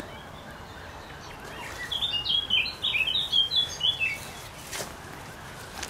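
A songbird sings a quick, jumbled run of high notes lasting about two seconds, starting about two seconds in. A couple of soft rustles follow near the end.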